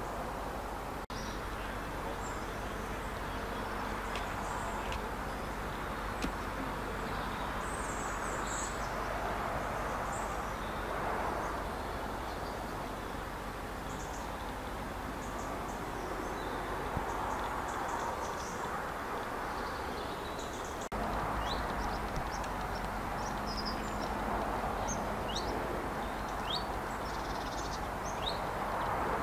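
A steady drone of machinery, with small birds chirping over it throughout.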